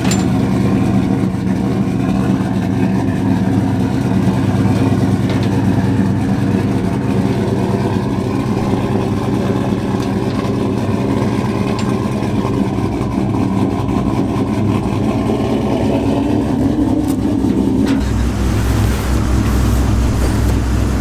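Vehicle engine running steadily, its low note growing deeper and stronger near the end.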